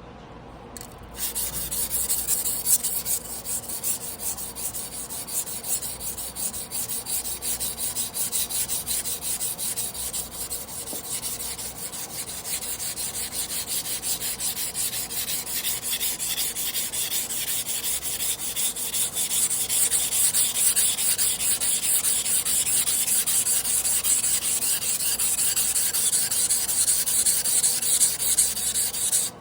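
Damascus carbon-steel sashimi knife being rubbed back and forth on a whetstone by hand, a continuous gritty scraping made of repeated strokes that starts about a second in.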